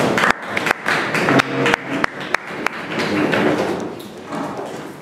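A run of irregular knocks and thuds over a rustling haze, thick for the first three seconds and fading away after about four.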